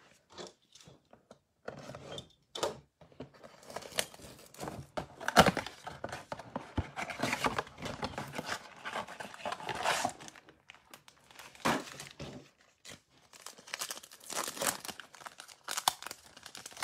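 A Donruss Optic basketball trading-card box being torn open by hand, its cardboard flaps ripping and rustling over several seconds. Near the end a card pack's wrapper is torn and crinkled open.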